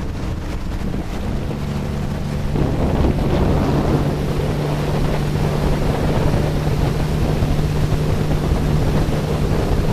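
Passenger speedboat's engine running steadily under way, with water rushing along the hull and wind on the microphone. The engine note steps slightly lower about a second in, and the rush of water and wind grows louder about two and a half seconds in.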